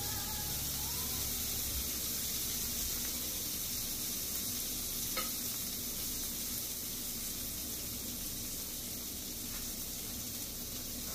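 Tofu and vegetable kabobs sizzling steadily on an electric indoor grill, with a single light click about five seconds in.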